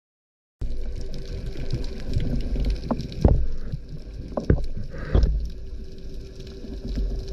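Underwater sound picked up through a GoPro housing during a freedive: a continuous low rumble of water against the camera, with a faint steady hum and a few louder knocks and gurgles between about three and five seconds in. It starts suddenly about half a second in.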